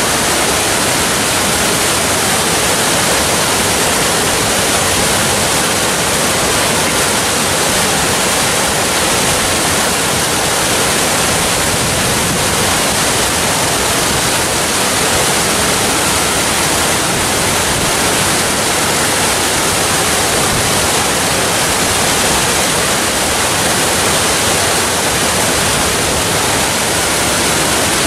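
Waterfall: a steady, loud rush of falling water, an even hiss without change or break.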